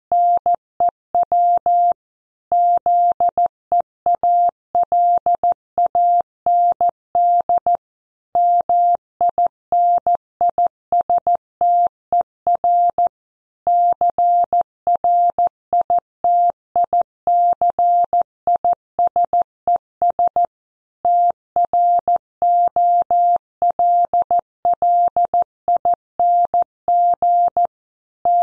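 Computer-generated Morse code sent at 14 words per minute, spelling out a news headline: one steady beep keyed on and off in short dits and longer dahs, with a longer pause between words every few seconds.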